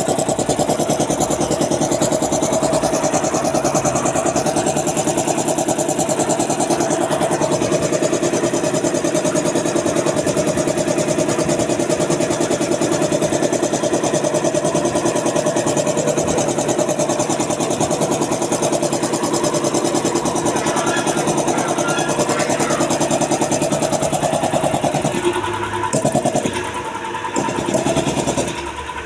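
Puma 5 HP 20/80 air compressor running under load, pumping up pressure after a rebuild with new piston rings. A steady, fast mechanical chugging that dips and breaks up a few times near the end.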